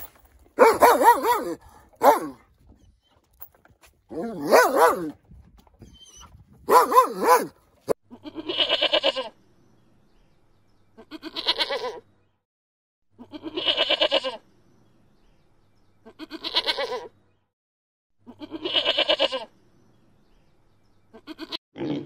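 A canine barking three times in the first seven seconds, then a goat bleating five times, each a quavering call about a second long, about every two and a half seconds.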